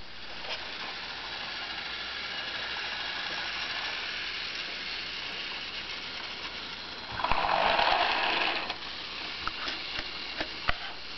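Battery-powered toy train running around a plastic track, its small motor whirring steadily. About seven seconds in a louder hissing burst lasts for about a second and a half, and a few sharp clicks follow near the end.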